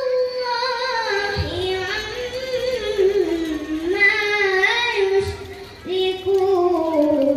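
A boy reciting the Quran in melodic tilawah style, holding long notes that waver and glide in pitch, with a brief pause about five and a half seconds in.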